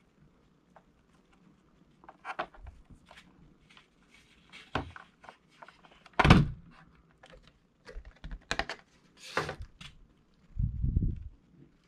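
Objects being handled, making scattered knocks, clicks and brief rustles, with a heavier thud about six seconds in and a low rubbing bump near the end.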